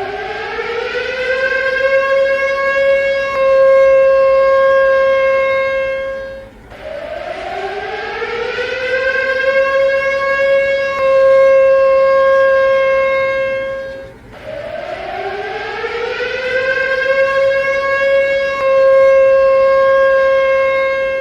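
Civil-defense-style siren sound from a novelty ceiling fan, winding up in pitch, holding a steady wail, then cutting off. It repeats three times, about every seven and a half seconds.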